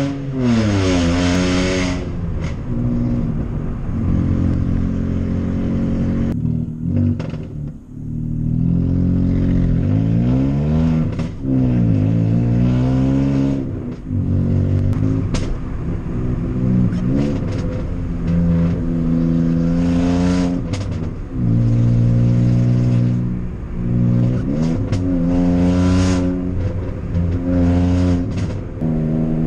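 Volkswagen Up!'s three-cylinder engine, loud through a cat-back straight-through exhaust and heard from inside the cabin, revving up through the gears and dropping back again and again. Sharp pops crackle from the exhaust as the revs fall off.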